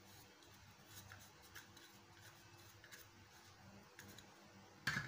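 Faint handling sounds as milk is poured from a plastic sachet into flour in a glass bowl: a few soft ticks and rustles, then one louder sudden rustle near the end.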